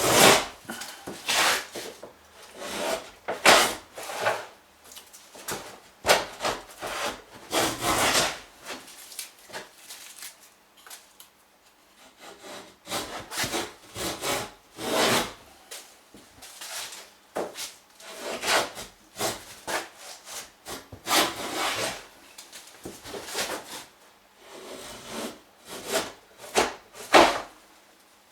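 Wooden moulding plane cutting a bead profile along the edge of a construction-lumber board, in a series of short strokes with brief pauses between them and a longer lull about a third of the way in.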